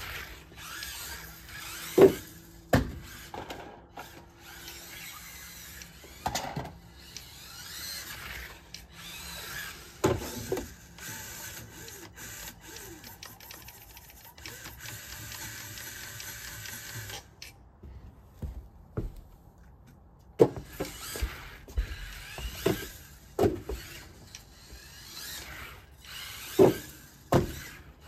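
Losi Micro-B micro RC buggy's small electric motor whining in short bursts as it accelerates and slides about on a wooden deck made slippery by dew, with sharp knocks from repeated bumps and crashes. The motor stops for a couple of seconds a little after the middle.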